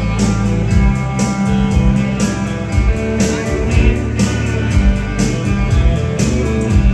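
Live dance band playing the instrumental opening of a song: electric guitars, bass, keyboards and drums with a steady beat.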